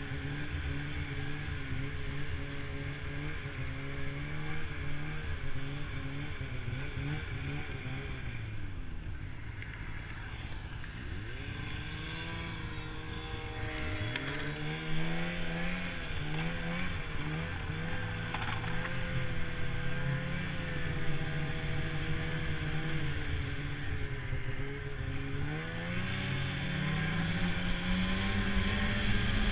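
Snowmobile engine running under way, the engine note dropping about nine seconds in as it slows, then rising again as it accelerates, and climbing once more near the end as it speeds up across open ground.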